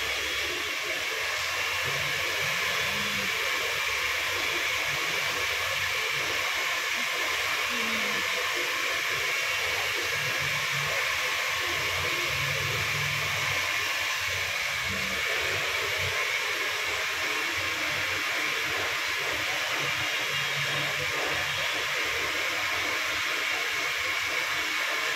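Steady, even rushing noise of an electric air blower running without change.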